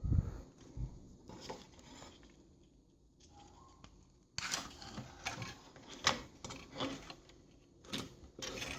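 Small handling sounds at a workbench: a low bump right at the start, then scattered clicks, taps and scraping, busier from about halfway through.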